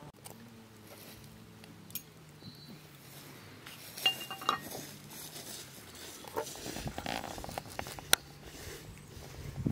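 Dishes and utensils being handled: scattered clinks and knocks, a couple of short ringing clinks about four seconds in and the sharpest knock about eight seconds in.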